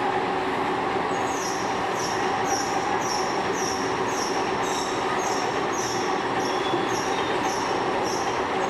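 Metal machining of a screw conveyor: a steady mechanical running noise with a short, high-pitched squeal repeating about twice a second from about a second in.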